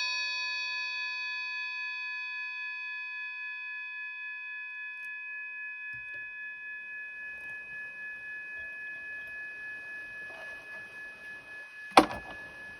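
A 'Vatican bell' minibus accessory bell ringing out after being struck, several clear steady tones slowly fading. A sharp knock sounds near the end.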